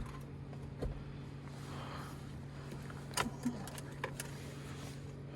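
A steady low hum with a few light clicks and taps, about a second in and again between three and four seconds in.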